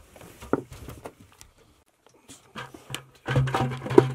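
Clicks and knocks of gloved hands handling a copper-to-PEX supply fitting. About three seconds in, a steady low hum with a hiss starts and carries on, with more knocks over it.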